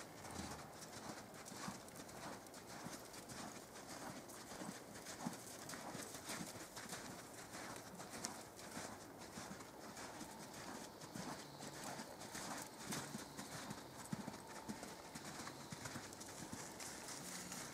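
Hoofbeats of a horse loping on soft arena dirt: a steady run of dull thuds.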